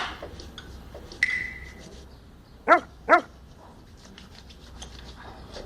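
A small dog yipping twice in quick succession, two short sharp barks under half a second apart. A brief light ring sounds about a second before.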